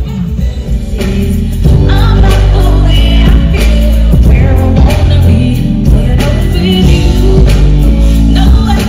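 Live R&B concert music: a singer over a band with heavy bass, which gets louder and fuller about two seconds in as the singing comes in.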